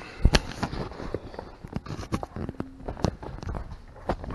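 A Miata's tan convertible top boot being pulled out from behind the seats and handled, giving rustling and a string of irregular small knocks and clicks.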